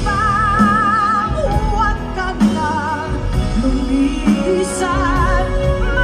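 A woman singing a pop ballad live, holding long notes with wide vibrato, over a band accompaniment.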